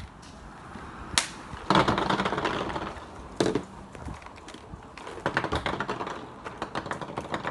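Paintballs rattling inside a paintball marker's hopper and clattering out onto a table as it is shaken and emptied, with a sharp click about a second in and a knock near the middle.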